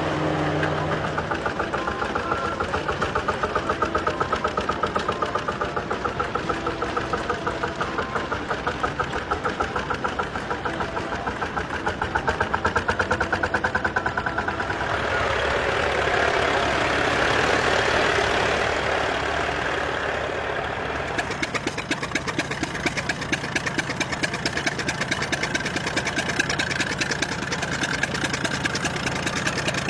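Vintage tractor engines running as tractors drive past one after another: first a Farmall, then an older tractor puffing smoke from a tall exhaust stack, then another. Rapid, even firing pulses throughout, with the engine sound changing about halfway through and again about two-thirds in.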